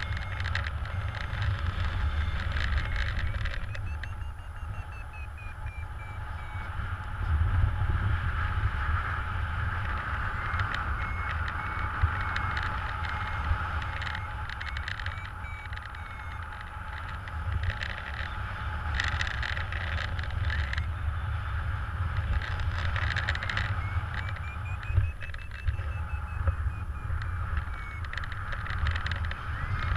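Wind rushing over the microphone of a paraglider in flight, gusting and uneven. A thin electronic beeping, typical of a paragliding variometer, comes and goes through it, its pitch gliding up and down.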